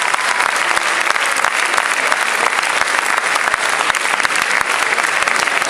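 A large audience clapping steadily in a sustained ovation: a dense, even wash of many hands clapping.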